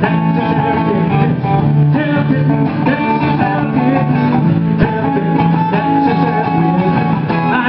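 Live country band playing an instrumental passage: an orange hollow-body electric guitar plays lead over a strummed acoustic guitar.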